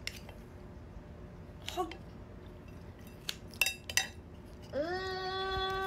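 Kitchen scissors clicking and snipping a few times as they cut into a geoduck clam's shell. Near the end a long drawn-out whining vocal cry begins, rising briefly and then holding one pitch.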